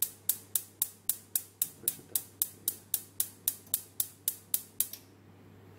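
Gas hob's spark igniter clicking rapidly, about four clicks a second, as the burner knob is held in to light the gas. The clicking stops near the end.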